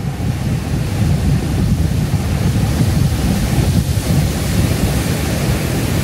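Heavy surf breaking against a rocky shore: a steady low rumble with the hiss of foaming whitewater, and wind buffeting the microphone.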